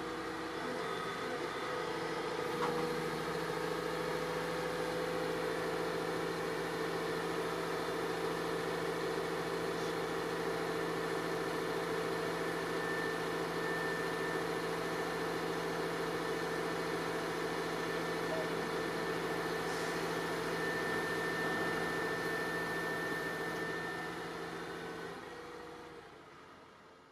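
Engine of a crawler piling rig running steadily with a constant hum, stepping up slightly about two and a half seconds in, then fading out near the end.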